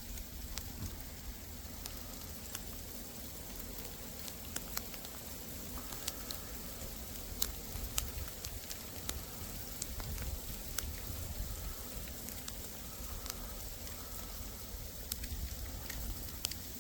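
Sleet and freezing rain falling on ice-crusted snow: a steady crackling hiss with many scattered sharp ticks of pellets striking.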